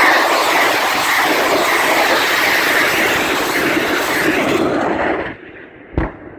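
Rocket salvo from a DP-65 Damba self-propelled anti-saboteur rocket launcher: a sudden, loud, continuous rushing noise of the rockets launching that lasts about five seconds and then drops away. About a second later comes a single short boom of a warhead detonating in the sea.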